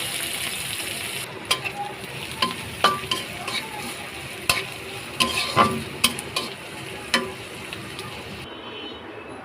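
Whole cumin, green chilli and chopped onion sizzling in hot oil in a kadai while a spatula stirs them, knocking and scraping against the pan in sharp clicks. The sizzle is loudest at the start and dies down after about a second.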